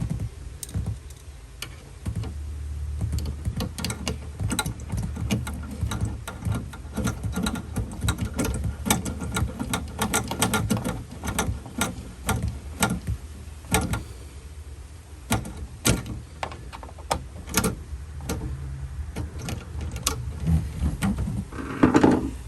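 Hardware being fitted by hand: many irregular sharp clicks and knocks of tools, screws and a metal spring hatch support against the boat's locker, over a low rumble, with a louder knock near the end.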